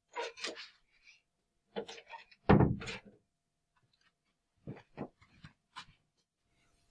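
Scattered footsteps and clothing rustles in a small room, with one heavier thump about two and a half seconds in.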